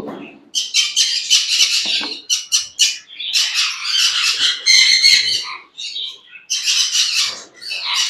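Parrots squawking: a fast run of short, loud calls with brief gaps, as the nest box is opened.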